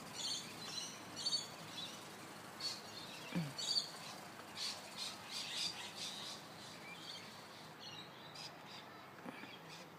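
Small birds chirping in short, irregular high calls over faint outdoor background noise.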